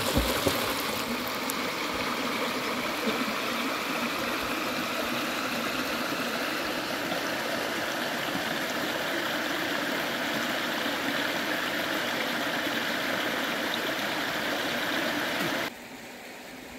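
Shallow river water rushing steadily over a small rocky riffle, an even noise that suddenly becomes quieter near the end.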